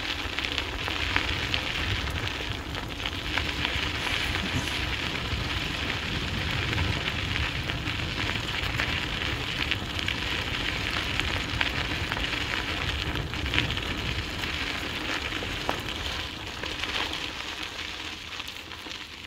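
Dog scooter's wheels rolling fast over a gravel-and-dirt trail: a steady crackling hiss with scattered small clicks and a low rumble underneath.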